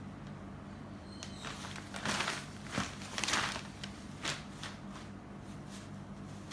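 Cotton saree fabric rustling as it is unfolded and flipped over, a run of rustles loudest in the middle, over a low steady hum.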